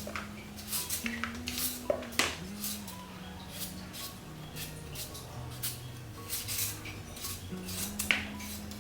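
Kitchen utensils and dishes clinking and knocking, many short sharp clicks, over soft background music with a slow, held melody.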